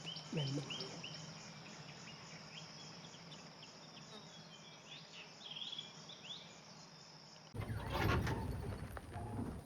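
Forest insects trilling in a steady pulsing chorus, with a few short bird chirps in the middle. About seven and a half seconds in it cuts suddenly to louder noise with a few sharp knocks.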